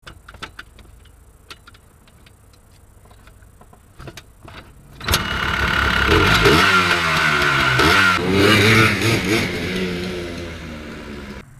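Small ATV engine started about five seconds in after a few light clicks, then revved up and down several times, fading toward the end.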